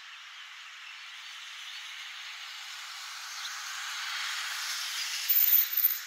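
Hiss of vehicle tyres on a wet road, swelling as a vehicle passes and peaking about four to five seconds in. A brief, very high-pitched tone, the loudest sound, comes near the end.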